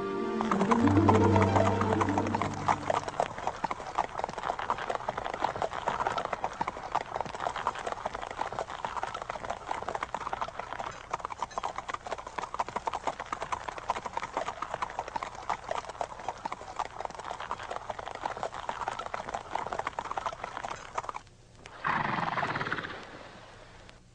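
Horse hooves clattering in a fast, continuous clip-clop, with a louder pitched sound in the first few seconds. The hoofbeats stop about 21 seconds in, and a short, loud swelling sound follows a second later.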